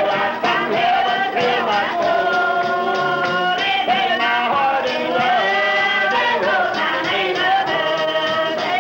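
Holiness church gospel singing: a group of men and women singing together over strummed acoustic guitars keeping a steady rhythm.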